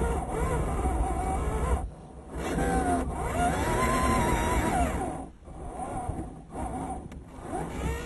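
Onboard sound of a 1:10 scale RC off-road truck: its motor and gears whine, rising and falling in pitch with the throttle, over a low rumble. The whine drops away briefly about two seconds in and several times in the second half.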